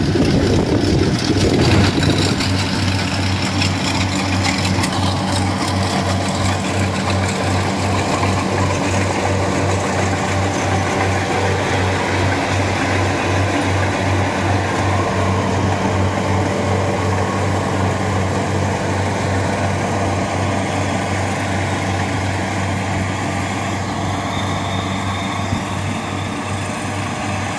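Rice combine harvester's engine running steadily under load, with the clatter of its cutting and threshing mechanism as it harvests standing rice. The machine is loudest in the first couple of seconds.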